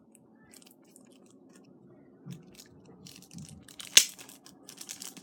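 Toy playset pieces and packaging being handled: scattered small clicks and rustles, with one sharp click about four seconds in.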